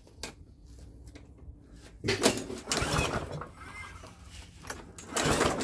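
Webb lawnmower's 132cc DVO130 petrol engine being pull-started twice on its recoil cord, each pull a rough rasping turn-over of about a second. It does not catch.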